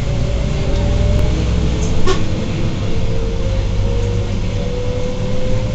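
Iveco EuroRider bus with Tector diesel engine and ZF 4HP Ecomat automatic gearbox, heard from inside the cabin while under way. A steady low rumble runs under a drivetrain whine that climbs slowly in pitch as the bus picks up speed. A short click comes about two seconds in.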